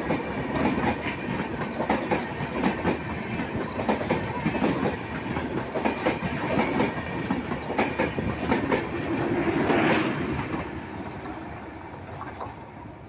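Railway coaches of a passing express train, their steel wheels clattering rhythmically over the rail joints. About ten seconds in, the last coach goes by and the clatter fades away as the train recedes.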